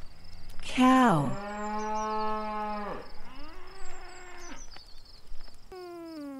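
A cow mooing: one long, steady low moo followed by a shorter, weaker second moo. Near the end a kitten starts a long meow that falls in pitch.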